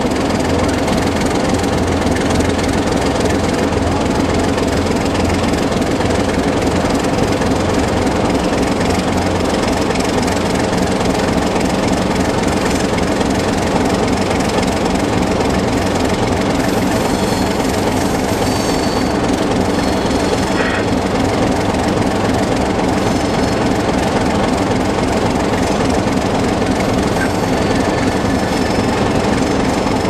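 Diesel engine of a Baldwin DS-4-4-1000 switcher locomotive running steadily as it pulls a string of tank cars, heard close beside its long hood, mixed with the rumble of wheels on rail.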